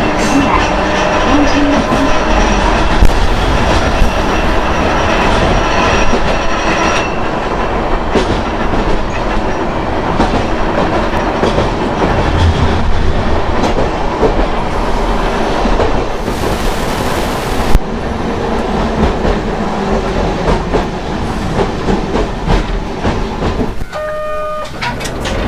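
Hankai Tramway Mo 351-series tram running along the track, its nose-suspended traction motors and gears humming over the wheel and rail noise. A steady whine is plain in the first few seconds and fades after about seven seconds.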